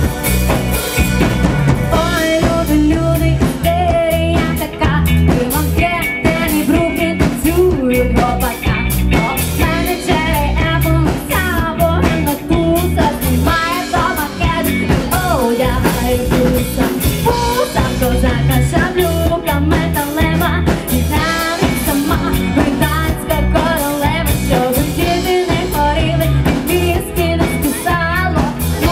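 A rock cover band playing live: a drum kit keeping a steady beat under bass and guitars, with a wavering melody line on top.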